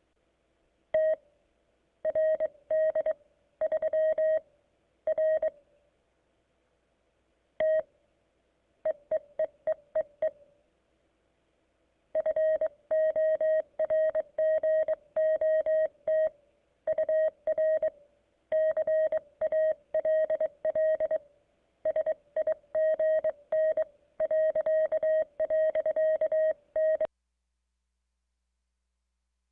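Morse code (CW) received on the 20-metre band through the CQ100 VoIP transceiver: one steady, mid-pitched tone keyed on and off in dots and dashes. It comes in groups with a few short pauses and stops shortly before the end.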